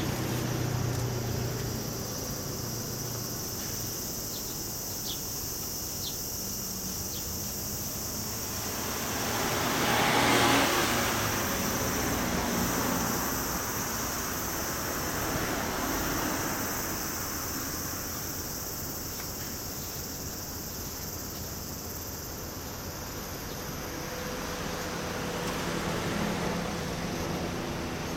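A vehicle passing by, swelling and fading about ten seconds in, with a fainter one near the end, over a steady high-pitched insect drone.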